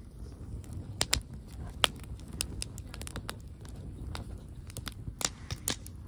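Wood campfire of split logs crackling, with sharp irregular pops, the loudest about one and two seconds in, over a steady low rumble.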